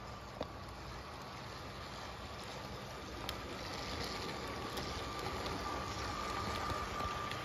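LEGO train running on plastic LEGO track: a steady high motor whine over the rumble and clatter of wheels, getting louder from about three seconds in as the locomotives pass close by, with a few sharp clicks.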